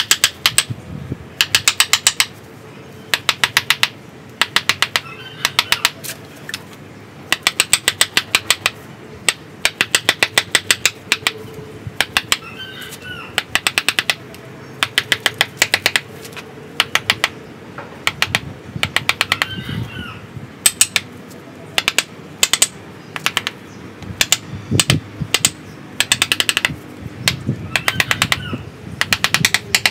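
Wooden mallet rapidly tapping a chisel into the wood of a bonsai trunk, carving out the cut top: quick runs of sharp knocks, about eight to ten a second, broken by short pauses.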